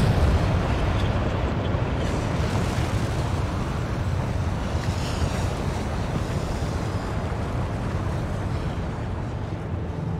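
Lava fountains of a fissure eruption giving off a steady deep rushing noise, heaviest in the low range, that slowly fades.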